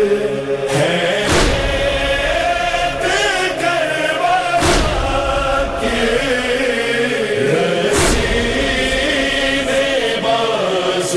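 A group of men chanting a Shia noha lament in unison, led by strong male voices. Heavy thumps of chest-beating (matam) mark the beat about every three seconds.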